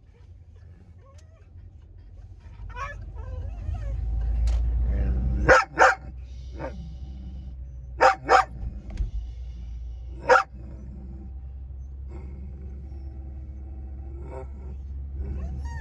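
A dog barking inside a car: two quick pairs of sharp barks and then a single one, over the steady low rumble of the moving car.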